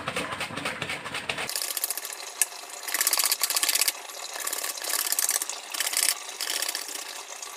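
Onion being sliced on a plastic mandoline slicer: repeated strokes across the blade, each a rapid fine clicking rattle, recurring about once a second in the second half.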